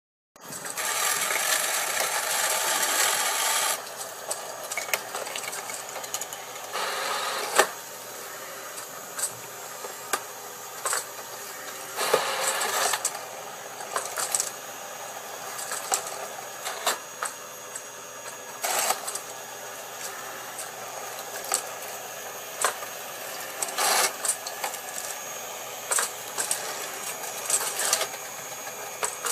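A LEGO machine's electric motors and plastic gears running, a steady whirr with frequent clicks and clacks of moving plastic parts. Louder for the first three seconds or so.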